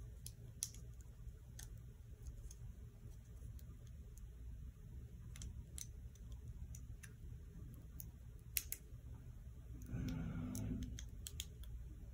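Small, sharp, irregular clicks of a tool prying at the glued clear plastic cover of an Abbott FreeStyle Libre glucose sensor, the cover not yet giving way. A brief low voice-like sound comes about ten seconds in.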